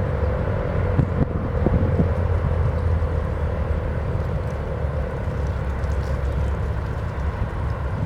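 Steady low outdoor rumble, with a faint steady tone fading out within the first second.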